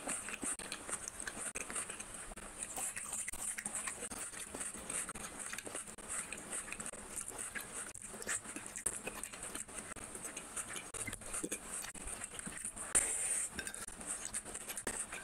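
Close-up eating sounds: fingers squishing rice and fish curry on a plate, and wet chewing and mouth smacking, as a continuous patter of small clicks with one louder clack near the end.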